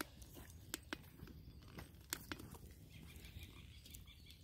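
Wood fire crackling faintly under a cooking pot: a handful of sharp, separate cracks over a low background rumble.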